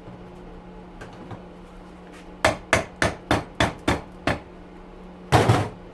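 A quick run of about seven sharp metal knocks, like hammer blows on a scrap part, roughly four a second, followed near the end by one louder, longer clatter.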